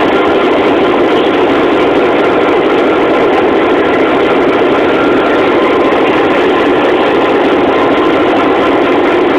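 Diesel locomotive engine running close by, a loud, steady sound that does not change.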